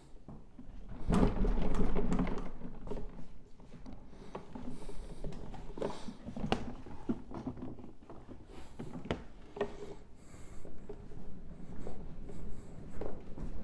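Handling noises from cleaning equipment being taken apart and moved: a rubbing, rustling swell about a second in, then scattered knocks and clicks.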